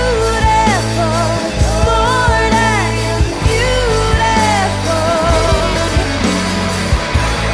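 Rock song with a sung melody over guitar, bass and a steady beat.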